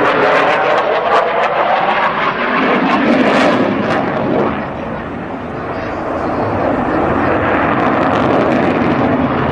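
Loud jet noise from a Belgian Air Force F-16 Fighting Falcon flying its display. The noise dips about five seconds in and then builds again.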